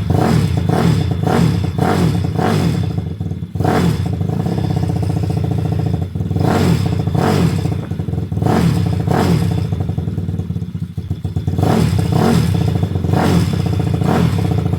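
261cc engine warming up on its first start, running loud with uneven surges in speed and a rapid clattering through the exhaust.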